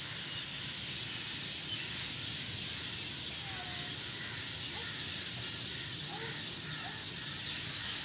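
A large flock of birds calling together, a dense steady chatter with scattered short rising and falling calls, over a low steady background rumble.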